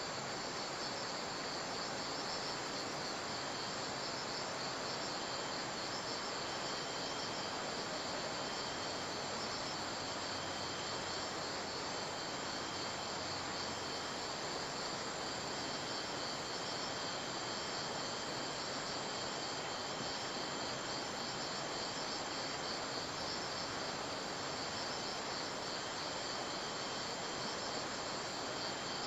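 Crickets chirping steadily in a fast, even pulsing, over a constant even hiss.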